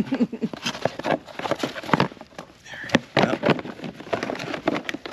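Handling noise of high-heeled shoes and their cardboard shoebox: irregular clicks, knocks and rustles as the shoe is set back in the box and the box is closed and lifted.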